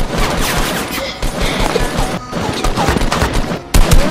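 Rapid gunfire sound effects, a fast stream of shots, laid over background music. Near the end the shots get louder and fall into a steady fast rhythm.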